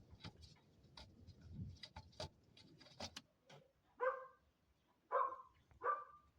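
An animal calling: three short pitched calls about four, five and six seconds in, among scattered faint clicks.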